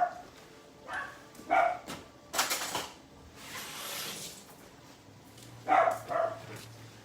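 A dog barking: a pair of short barks about a second in and another pair about six seconds in, with a brief rustling noise between them.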